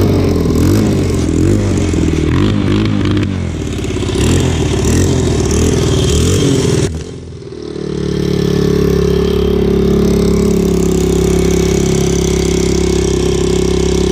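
Honda dirt bike's single-cylinder engine running on choke. For about seven seconds the revs rise and fall unevenly; they dip briefly, then the engine settles into a steady idle. The exhaust has just been resealed at the cylinder head, and the engine is running with no exhaust leak.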